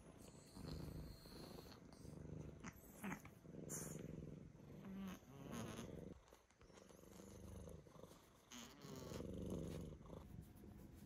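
A domestic cat purring close up while being stroked, the purr rising and falling in slow breath-paced pulses about a second long. Soft rustles of hand and bedding come in now and then.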